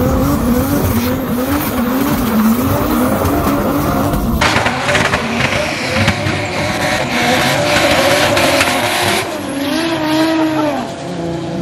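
Drift cars sliding on a wet track: engines revving up and down in quick repeated swells as the drivers work the throttle, with tyre noise. The sound changes abruptly twice as it cuts between cars.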